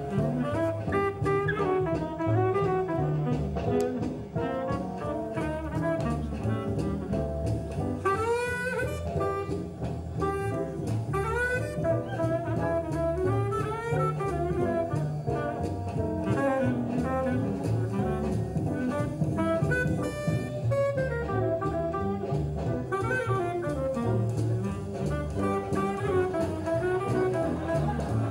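Jazz music: a brass and saxophone melody over double bass and drums.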